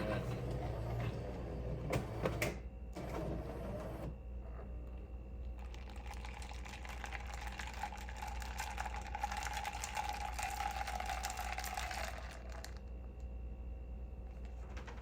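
Jura Z10 super-automatic coffee machine working through the end of a drink: clicks and a mechanical whir in the first few seconds, then a hissing run with a steady mid-pitched tone from about six seconds in that stops near thirteen seconds.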